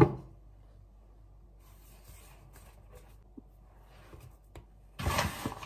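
Faint rustling of hands working a ball of roti dough on a floured counter. About five seconds in comes a brief, loud rustling hiss of floury hands and flour.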